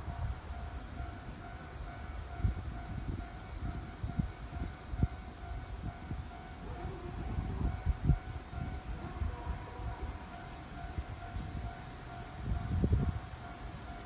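Cicadas droning steadily, with gusts of wind buffeting the microphone in low rumbles and a faint steady tone underneath.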